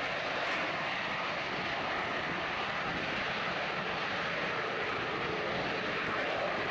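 Harrier GR7's Rolls-Royce Pegasus vectored-thrust turbofan running at hover power, the jet holding a steady hover. A loud, even jet noise that doesn't change.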